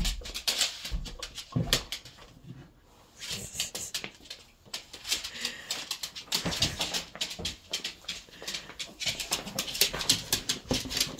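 A dog scrambling and playing on a hard floor: rapid clicking and skittering of claws, with a few heavier thuds as it leaps for and lands with a thrown ball, about 1.5 s, 6.5 s and near the end.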